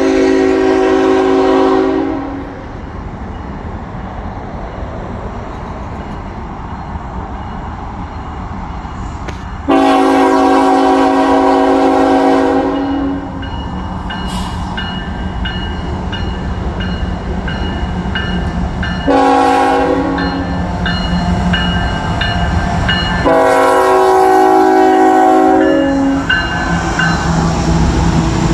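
CSX diesel freight locomotive's air horn sounding a multi-note chord in the grade-crossing pattern: two long blasts, a short one and a final long one. A crossing-signal bell rings steadily from about halfway. The locomotive's diesel engine and wheel noise grow louder as it reaches the crossing near the end.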